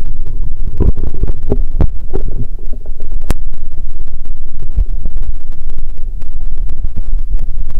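Loud, muffled low rumble of water moving around an underwater action camera, with a few dull knocks in the first three seconds and one sharp click a little past three seconds in.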